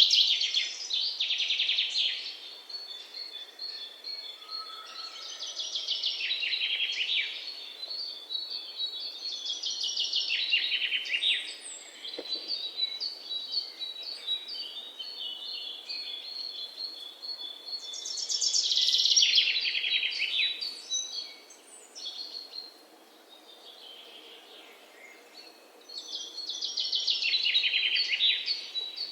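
Birds singing: repeated bursts of fast, trilled song every few seconds, with thin high whistling notes in between.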